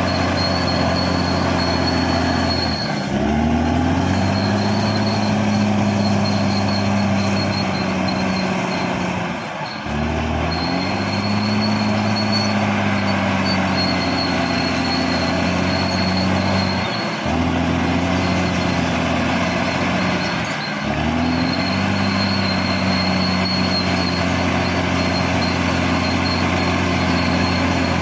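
Caterpillar D6R XL bulldozer's diesel engine running hard under load. Its note dips briefly and climbs back about four times, and a thin high whine comes and goes over it.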